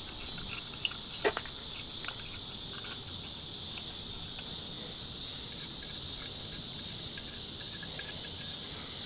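Steady high-pitched drone of insects chirping outdoors, with a couple of short sharp clicks about a second in.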